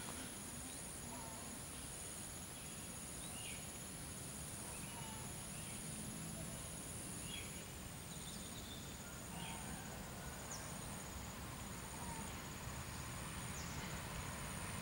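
Steady high-pitched buzzing of insects with a few short bird chirps over a faint outdoor hum. A low rumble grows slightly near the end as a diesel passenger train approaches.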